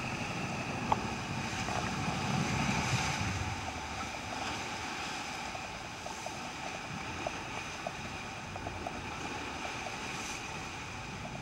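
Rough sea rushing and splashing past a moving boat's hull, with wind buffeting the microphone. There is a single sharp knock about a second in.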